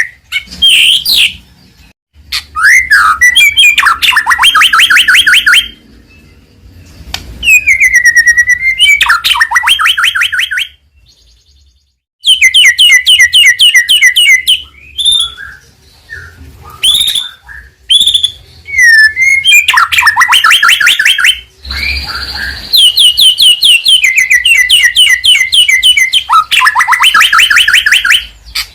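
White-rumped shama (murai batu) singing loudly in long phrases: fast rattling trills of rapidly repeated notes mixed with rising and falling whistles. The phrases are broken by short pauses.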